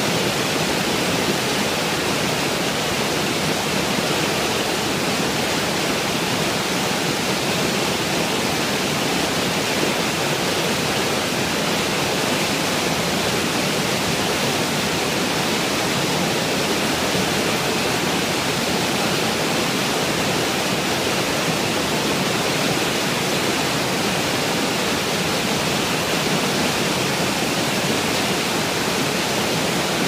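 River rapids: fast whitewater rushing and churning over and around a boulder in a steady, unbroken wash of noise.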